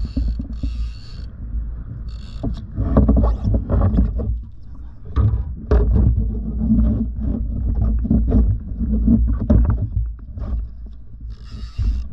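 Fishing kayak on the sea: a steady low rumble of wind and water on the mounted camera, with repeated knocks and clatter from the rod, reel and hull as the angler handles his tackle.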